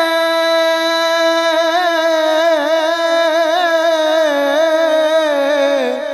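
A man singing an Urdu naat unaccompanied into a microphone, holding one long ornamented note whose pitch wavers and falls a little near the end.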